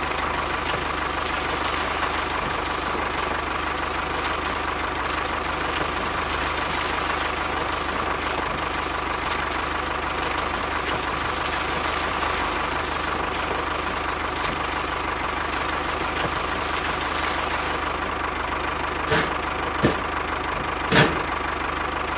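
Small motor of a homemade model tractor running steadily with a constant whine and low hum as it drags a tined cultivator through sand. Two sharp knocks near the end.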